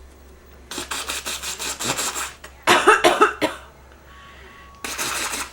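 A person with bronchitis coughing: a quick run of short coughs, then a louder burst of coughs about three seconds in, and one more short cough near the end.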